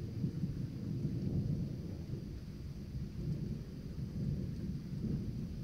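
Thunder from a thunderstorm rolling in one long, low rumble that swells and eases.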